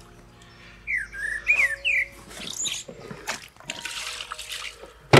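A few short chirping bird calls in the first couple of seconds. Then wet rustling and splashing of water as a carp is handled in a soaked fabric sling to be returned, ending in a sharp knock.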